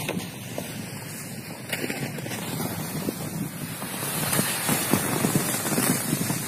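Wind buffeting the microphone, over irregular crunching and scraping of footsteps and a towed plastic sled on snow-covered ice. It grows louder about four seconds in.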